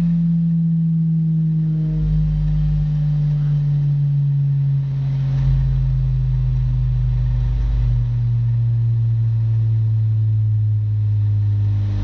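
Subwoofer test tone from a sound-check track played through a parade sound system: one loud, steady low sine tone that glides slowly down in pitch, over a deeper rumble.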